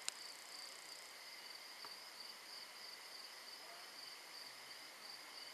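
Crickets chirping in a faint, steady high trill, with a single sharp click just after the start.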